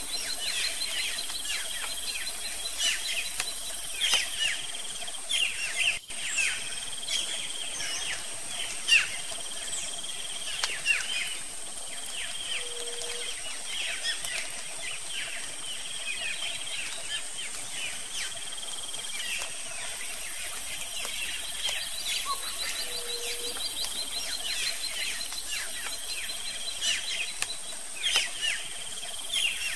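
Natural soundscape of many birds chirping in quick, downward-slurred notes over a steady high insect drone, with a short low call twice.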